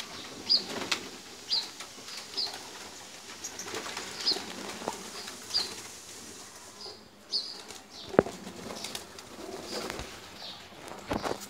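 A flock of domestic pigeons flapping their wings as they move, take off and land, with low cooing and short high chirps about once a second. A few sharp claps stand out, the loudest about eight seconds in.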